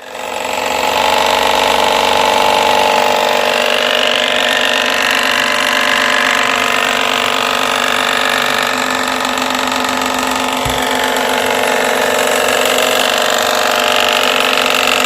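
High-pressure car washer running steadily: a motor and pump hum under a broad hiss, starting at once.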